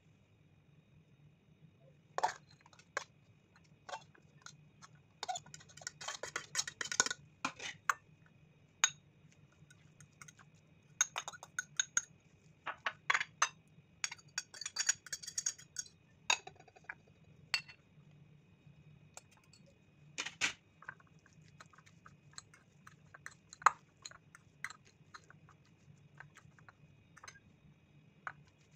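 A metal fork clinking and scraping against ceramic bowls and plates as chopped vegetables are scraped in and stirred together. The sound is made of irregular sharp taps, with two denser runs of scraping in the first half.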